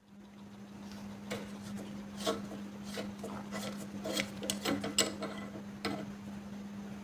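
Scattered light clicks and knocks of small metal parts being handled, over a steady low hum. The clicks bunch together in the middle seconds.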